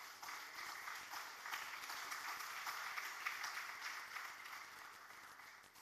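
Audience applauding, which starts up at once and dies away near the end.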